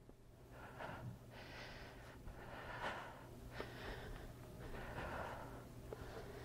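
A woman breathing hard with exertion: short, faint, forceful breaths, roughly one a second, over a steady low room hum.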